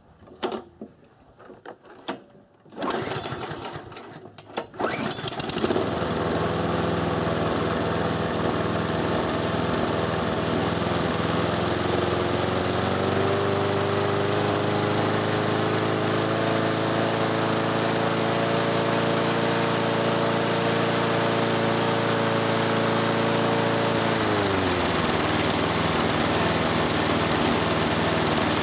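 A 6 hp Briggs & Stratton single-cylinder mower engine, after a few knocks, starts up about five seconds in and runs at low speed. It is then brought up in steps to a higher, steady speed and drops back near the end. Its governor spring has been tightened and the linkage rod bent to raise top RPM.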